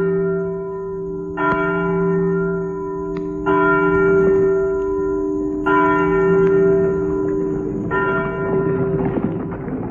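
A church bell tolling slowly, four strokes about two seconds apart, each ringing on into the next, as a toll for a memorial service. A rising rush of noise comes in near the end.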